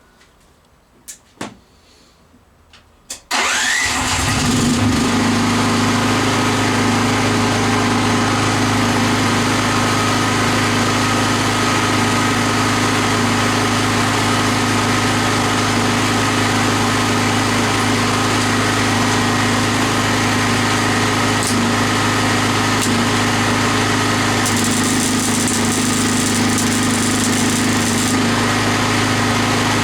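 A couple of light clicks, then about three seconds in a machine switches on with a clack and runs on with a loud, steady hum that does not change.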